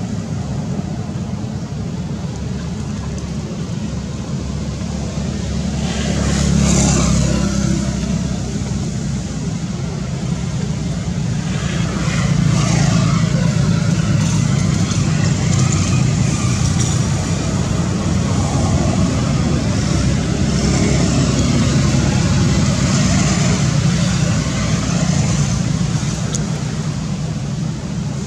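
Steady hum of motor vehicle engines running, growing louder about six seconds in and again from about twelve seconds on.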